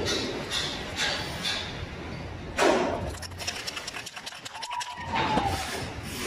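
Hands rubbing masking tape flat onto a concrete column in quick, regular strokes. A knock about two and a half seconds in is followed by the rapid rattle of an aerosol spray-paint can being shaken.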